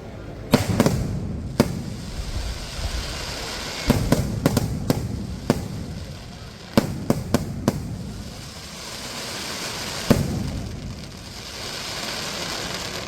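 Fireworks going off: about a dozen sharp bangs, some in quick runs of three or four, with a crackling hiss between them.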